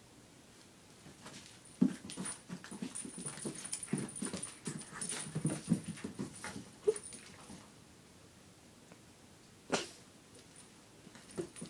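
A puppy making a rapid run of short, low play noises for about five seconds while it wrestles with a small object, then one sharper short sound near the end.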